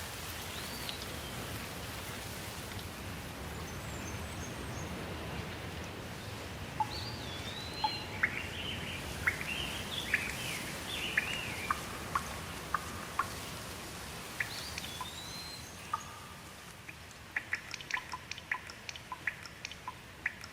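Steady rain hiss with birds calling over it: a string of whistled calls that swoop up and down through the middle, and a quick run of short sharp ticks near the end.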